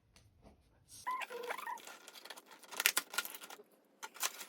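A parcel being opened by hand: rustling and a run of small clicks and taps from handling the packaging, with a brief squeaky, chirp-like sound about a second in.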